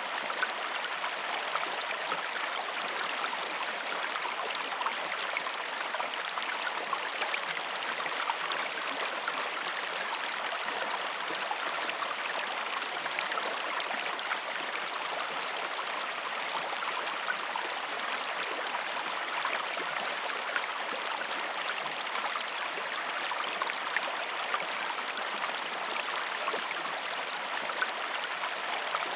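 River water flowing and babbling over rocks, a steady rushing hiss with small splashes throughout.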